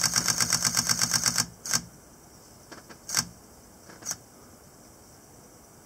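Panasonic Lumix camera shutter firing a rapid continuous burst, about ten frames a second for about a second and a half, followed by a few single clicks over the next few seconds.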